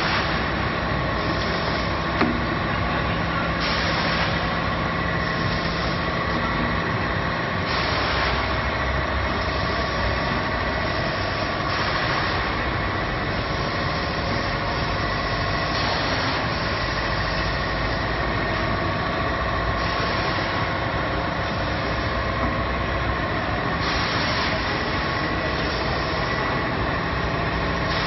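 Wafer production line machinery running continuously: a steady dense mechanical din with constant hum tones, and a high hiss that comes and goes in a regular cycle about every four seconds.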